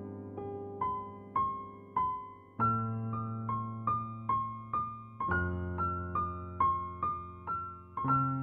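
Background piano music: a slow melody of single notes, about two a second, over held bass chords that change every few seconds.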